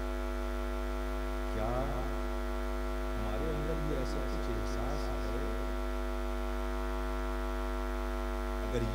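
Steady electrical mains hum from the sound system: a constant low buzz with many evenly spaced overtones. A faint voice murmurs briefly a couple of times over it.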